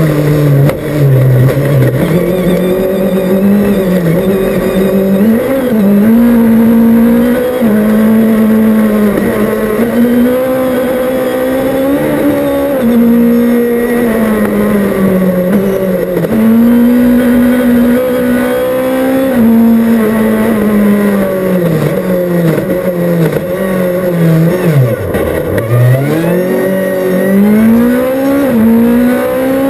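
Rally car's engine heard from inside the cockpit, driven hard with the revs rising and falling through gear changes and lifts. Near the end the revs sink low for a slow corner, then climb quickly again under full throttle.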